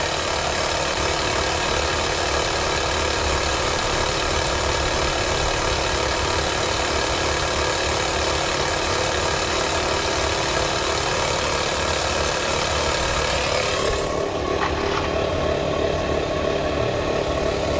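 Portable air compressor running steadily, re-inflating a tire just repaired with a plug. About 14 s in its sound changes: the high hiss drops away and a lower steady tone comes in.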